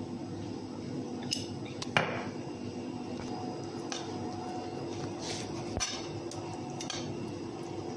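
Metal spoon clinking and scraping against a metal pizza pan while spreading sauce: a handful of short sharp knocks, the loudest about two seconds in with a brief ring. A steady low hum runs underneath.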